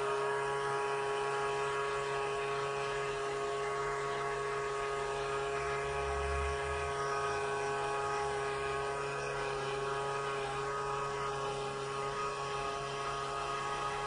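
A steady hum of several held tones that does not change pitch, with a brief low rumble about six seconds in.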